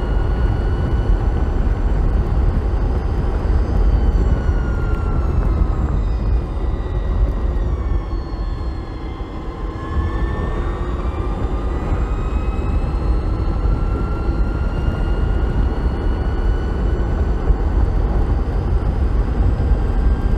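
BMW CE 04 electric scooter's motor whine, several tones gliding down as it slows about four to nine seconds in, then rising again as it speeds back up, under heavy wind rumble on the microphone.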